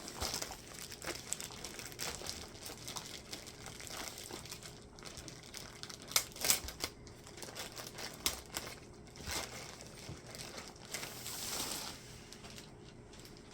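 Thin plastic dust-cover sheeting crinkling and rustling as it is handled and unwrapped, with a few sharper crackles along the way.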